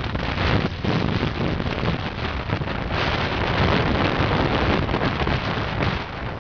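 Gale-force wind buffeting the microphone over the rush of waves breaking and spraying along the hull of a sailing ship heeled on a beam reach.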